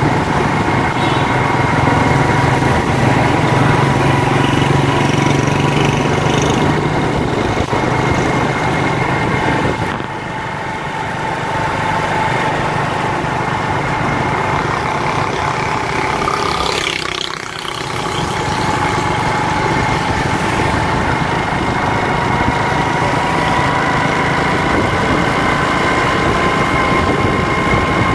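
Small motorcycle engine running steadily while riding, heard from a helmet-mounted camera, with a steady whine; the sound dips briefly twice, as if the throttle eases off.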